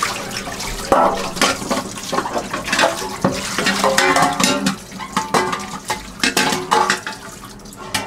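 Tap water running into a stainless steel sink as a stainless steel food tray is rinsed under it, with repeated clanks of the metal tray against the sink. The water thins out near the end.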